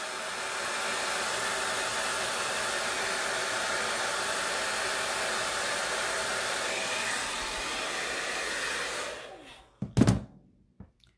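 Handheld hair dryer running steadily on low heat, blowing on freshly applied mascara. It fades out and stops about nine seconds in, followed a moment later by a single sharp knock.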